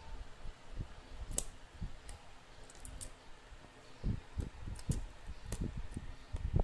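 Scattered light clicks and soft low knocks at irregular intervals, the strongest near the end, like small objects being handled or tapped.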